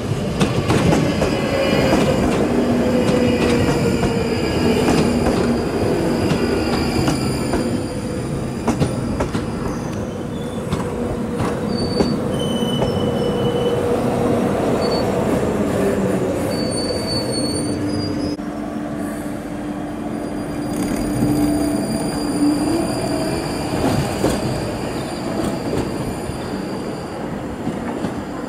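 Northern line 1995 Stock tube train running slowly along the platform: a steady rumble of wheels on rail under a hum that slowly falls in pitch, with a few short high-pitched wheel squeals in the middle.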